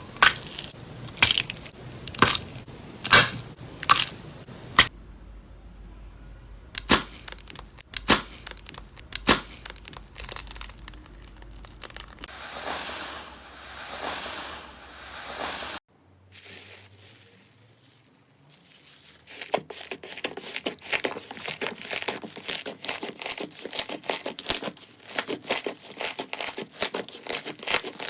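Slime being squeezed, pressed and poked: a run of sharp crackles and pops, a stretch of softer hissing, a brief lull about two thirds of the way through, then dense, rapid crackling.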